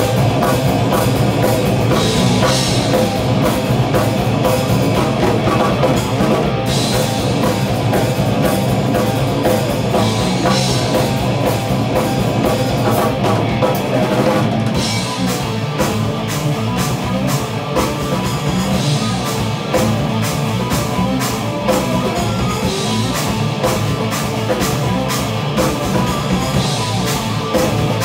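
Rock band playing an instrumental heavy piece together: drum kit with cymbal accents, bass guitar and electric guitars, loud and continuous, easing into a slightly lighter passage about halfway through.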